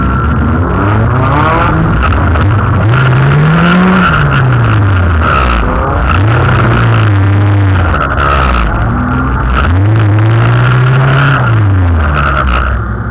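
Dirt-track race car's engine, heard from inside the car, revved up and let fall back about three times, each rise slow and held for a second or so before dropping.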